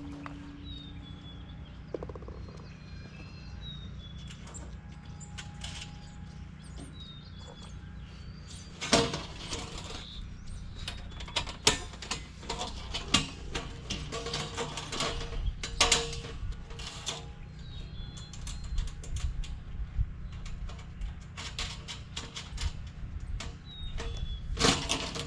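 Galvanized steel raised-bed panels and hardware clanking and clicking as they are handled and bolted together: scattered sharp knocks starting about a third of the way in, with faint bird chirps before them.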